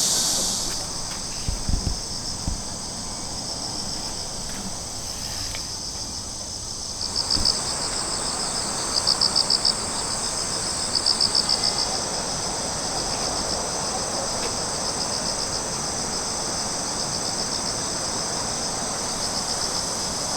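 Insects chirping outdoors in a steady high drone, with three louder bursts of rapid, evenly spaced chirps. A few soft low thumps come about two seconds in.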